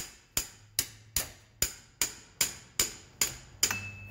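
Hammer striking a wrench on a 24 mm socket on a 7.3L Powerstroke's harmonic balancer bolt, about two and a half sharp ringing blows a second, ten in all, stopping near the end. The blows are shocking the tight bolt loose in place of an impact gun.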